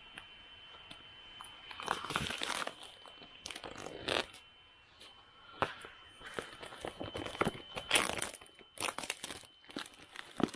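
Packaging being opened by hand: irregular crinkling, crackling and tearing of wrapping, louder in short bursts. A faint steady high tone sits underneath.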